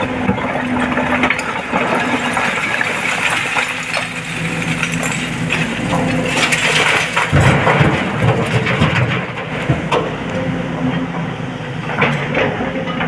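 SANY 225 excavator's diesel engine running under load while it loads a dump truck, with loose rock and earth clattering and cracking as it is dumped. A heavy rumbling dump comes about seven seconds in.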